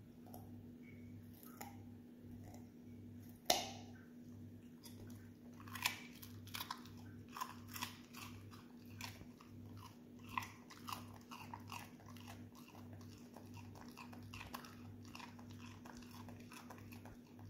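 An Australian Shepherd chewing a raw carrot: one sharp snap about three and a half seconds in as a piece is bitten off, then a run of irregular crunches, over a faint steady hum.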